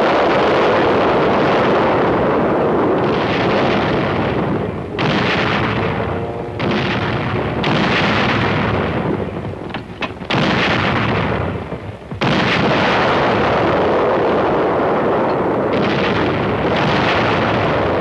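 A battery of field artillery guns firing a barrage: loud blasts one after another. Fresh shots start abruptly about five, six and a half, ten, twelve and seventeen seconds in, each running on into the next.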